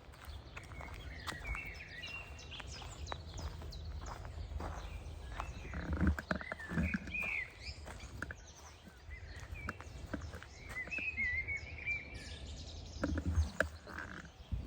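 Songbirds singing in short, warbling phrases of chirps, over a steady low rumble. A few low thuds come about six seconds in and again near the end.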